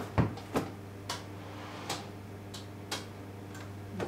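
Steady low electrical hum from an appliance, with irregular sharp clicks over it, about eight in four seconds.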